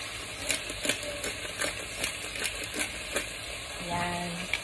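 Pumpkin, capsicum and snake beans sizzling as they sauté in a pan, with scattered small clicks and taps through the sizzle while they are stirred and seasoned.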